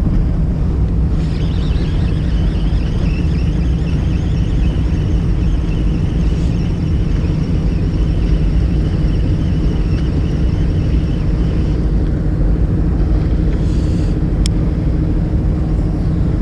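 A fishing boat's engine running steadily, a loud low drone. A higher whine rides over it for about ten seconds, and there is one sharp click near the end.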